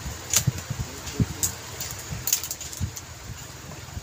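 Hands handling packaging, a clear plastic cube case and a small cardboard box, with a few sharp plastic clicks and soft knocks.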